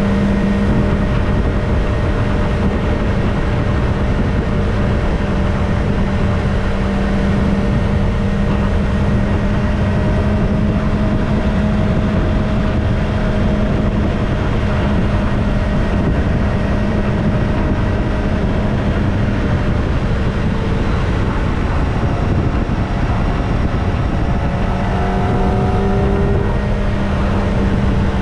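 Kawasaki ZX-25R's 250 cc inline-four engine on its stock exhaust, running at a steady cruise with small pitch shifts near the end, under steady wind noise.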